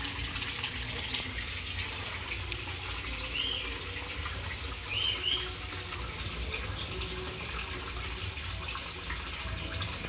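Water from a small pond waterfall splashing steadily into a koi pond. A bird chirps briefly once about three seconds in and twice about five seconds in.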